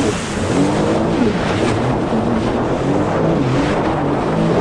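Sea-Doo FishPro 170 jet ski running under way, its engine pitch rising and falling several times, over a steady rush of wind and water spray.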